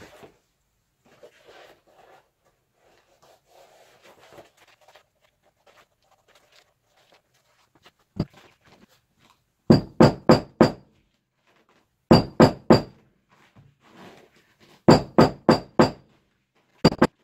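Faint rustling, then quick bursts of three to five sharp, ringing strikes about a third of a second apart, repeated four times from about ten seconds in: hand-tool strikes on a motorcycle seat being re-upholstered.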